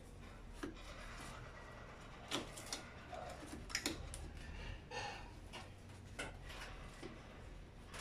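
Gloved hands handling a washing machine's wiring harness: scattered clicks, taps and rubbing of wires and plastic parts, the sharpest a few clicks a little over halfway through, over a low steady hum.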